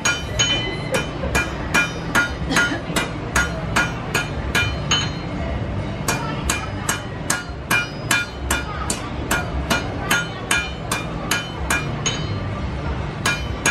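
Blacksmith's hand hammer striking a red-hot iron bar on an anvil at a steady pace, about two to three blows a second, each blow ringing with a bright metallic tone. The blows stop briefly twice, about five seconds in and again near the end.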